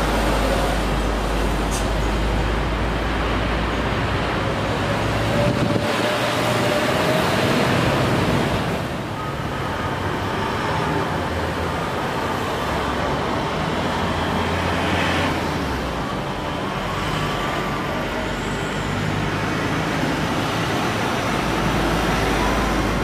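Jet airliner engines. First a Boeing 737 is at takeoff thrust on its takeoff roll: a steady roar with a whine rising in pitch. After a change about nine seconds in, an Airbus A320-214 with CFM56 engines passes on final approach: a steady roar with thin whistling tones.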